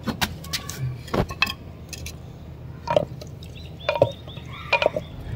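A ladle knocking and scraping against a clay cooking pot while onions and tomatoes are stirred in hot ghee: a series of irregular clicks and knocks.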